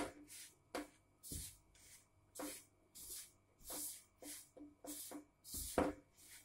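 A hand rubbing and tossing dry wheat flour mixed with boiled bathua greens in a metal bowl: soft rustling strokes about twice a second, with a few light knocks, the loudest near the end.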